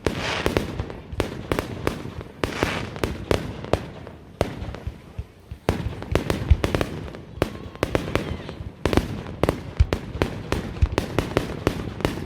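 Fireworks display: a rapid, unbroken barrage of shell bursts, several bangs a second.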